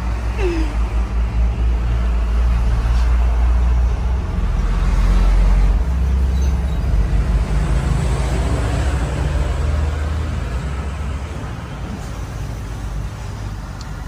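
Motor vehicle engine rumbling, louder toward the middle and fading away near the end, as a vehicle passes.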